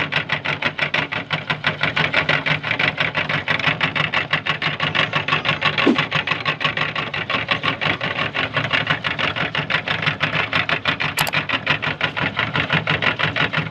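Electric meat grinder running steadily with a rapid, even pulsing of about ten beats a second.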